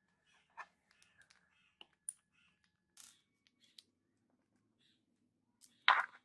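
Small metal clicks and clinks as the aluminium gear housing and bearing of an angle grinder are handled and fitted together by hand, with a louder knock near the end.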